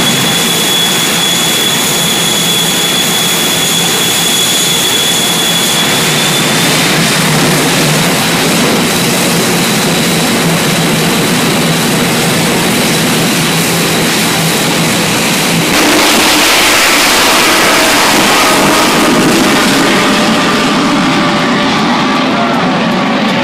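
Shockwave jet truck's three jet engines running with a steady high whine over a roar, the whine edging up in pitch. About sixteen seconds in they go to full power with a sudden louder roar, then the sound falls in pitch and fades as the truck runs off down the drag strip.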